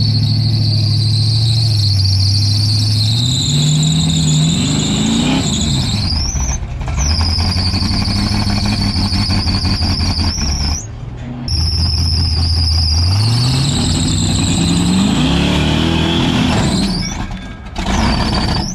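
Engine of a lifted Toyota 4Runner revving hard as it climbs a steep ledge, with a high-pitched whine riding over the engine note. The pitch climbs and falls away twice, and the throttle lets off briefly near the middle and again just before the end.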